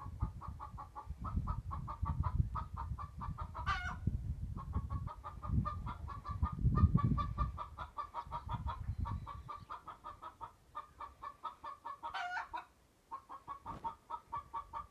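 Chickens clucking in a rapid, steady run of short notes, broken twice by a short sharp squawk, about four seconds in and near the end. A low rumbling noise runs under the first half.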